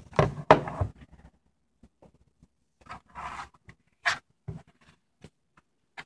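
Knocks and thumps of an HP ProDesk 600 G1 mini PC's metal case being turned over and set down on a desk, the loudest in the first second, followed by a few rustles and sharp clicks as it is handled.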